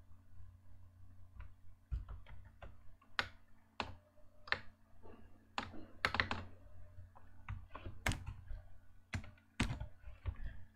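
Computer keyboard keys and mouse buttons clicking in irregular taps, a few louder strokes among quieter ones.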